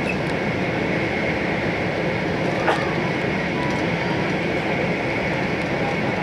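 Steady running noise of an E4 series Max Shinkansen at speed, heard inside the cabin from the upper deck of a motor car, with a faint steady high whine. A single sharp click comes about two and a half seconds in.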